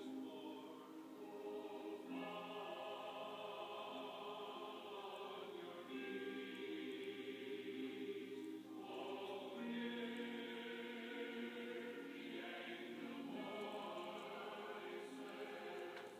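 Choral music: a choir singing long held chords that change every few seconds.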